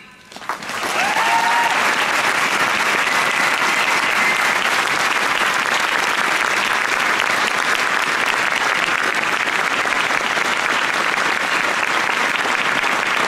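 Large crowd applauding, starting about half a second in and going on steadily.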